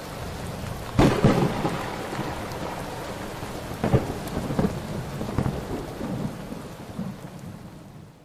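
Thunderstorm: steady rain with a loud thunderclap about a second in and another crack near four seconds, rumbling on and fading out at the end.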